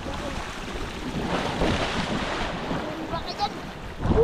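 Wind buffeting the microphone over the sound of sea water washing, swelling for about a second in the middle.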